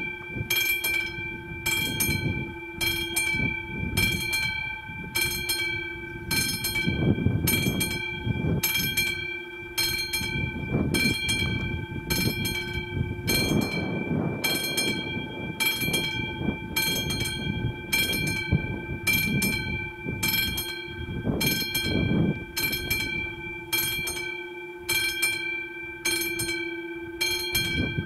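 Level-crossing warning bell (the classic bell of an AŽD 71 crossing signal) ringing steadily, with sharp strikes repeating a little over once a second. A low, uneven rumble runs underneath.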